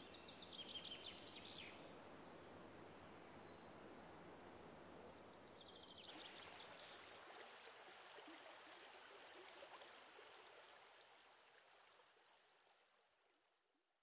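Near silence: faint outdoor ambience, a soft hiss with a few faint high chirps, fading out about twelve seconds in.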